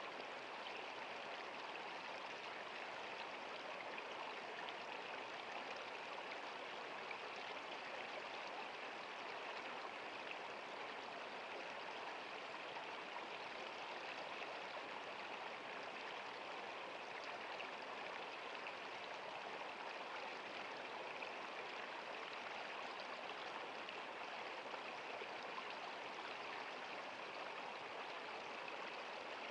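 Small stream of water flowing steadily, a constant babble with no breaks.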